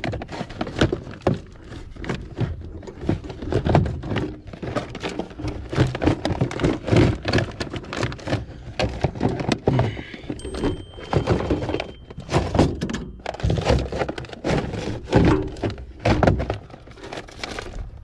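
Clear plastic parts bins knocking and clattering against each other and the truck's service-body compartment as a broken one is worked back into place: an irregular run of thunks and rattles.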